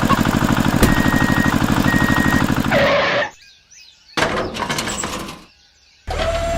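A small engine running with a fast, even beat, cut off abruptly about three seconds in. About a second later comes a short clattering crash, then the engine sound returns near the end.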